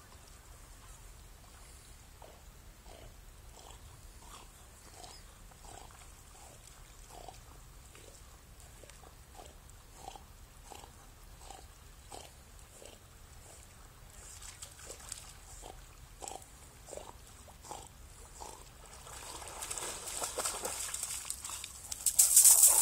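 German Shorthaired Pointer swimming, puffing breath in short regular pulses about every 0.7 s. Near the end comes loud crunching on shingle as the dog comes ashore.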